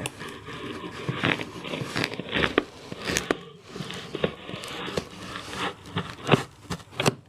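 A brown cardboard box being torn open by hand, with irregular crackling, crinkling and tearing of cardboard and packing tape.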